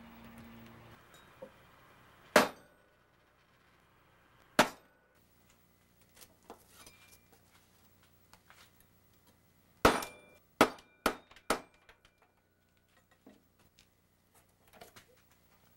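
Machete blade chopping a green plant stalk on a wooden workbench: sharp chops into the wood, two a couple of seconds apart, then after a pause four in quick succession.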